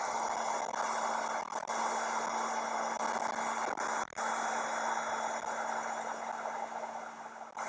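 Heat gun running: a steady rushing blow over a constant low hum, used to shrink heat-shrink tubing onto speaker wire ends. The sound dips briefly about four seconds in.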